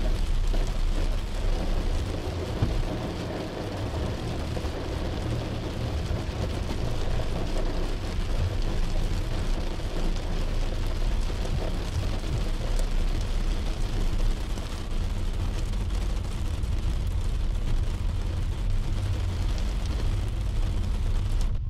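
Heavy rain falling on a car's roof and windshield, heard from inside the cabin as a steady hiss with fine pattering, over a low road and engine rumble from the moving car.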